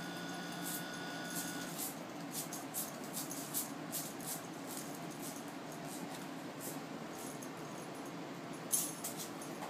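A crocheted jellyfish rattle toy clicking and rattling in short, scattered bursts as a ferret bats, bites and tugs it, with soft rustling over a low steady hum. The clicks come thickest in the first few seconds and again near the end. A faint steady whine cuts off about two seconds in.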